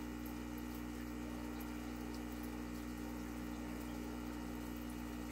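Aquarium pump running with a steady hum and a constant trickle of moving water.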